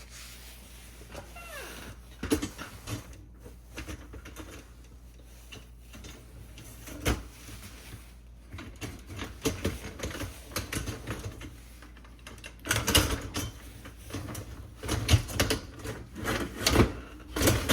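Plastic clicks, knocks and rattles of a dishwasher top rack and its adjuster parts being handled, with a busy cluster of clicking about thirteen seconds in and again near the end.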